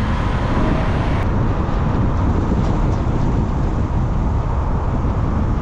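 Strong wind buffeting the microphone: a loud, steady, unpitched rumble, heaviest in the low end.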